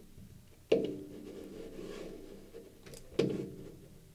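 Two dull knocks about two and a half seconds apart, each followed by a short low ringing tail, with faint room noise between them.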